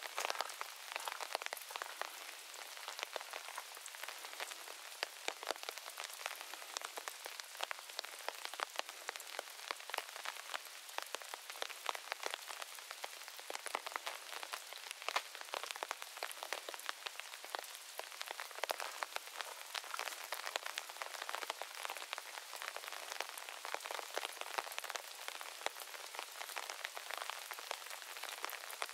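Steady rain falling: an even hiss with many close, sharp drop hits scattered through it.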